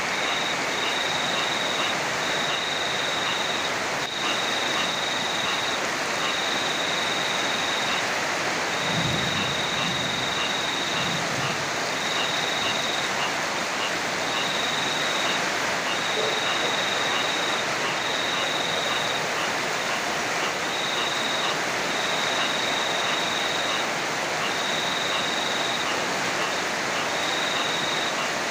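Steady heavy rain, an unbroken hiss. A high trill pulses on and off about once a second throughout, and a brief low rumble comes about nine seconds in.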